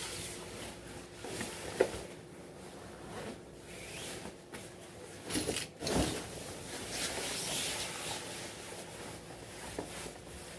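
Fabric of a water-repellent windbreaker jacket rustling and rubbing as it is pulled on, with irregular swishes and a louder one about six seconds in.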